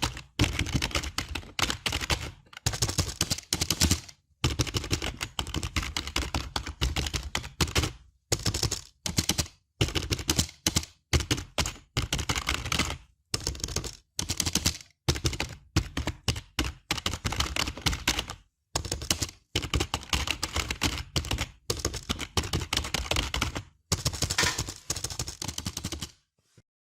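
Computer keyboard typing: rapid key clicks in bursts of a second or two with short pauses between, stopping near the end.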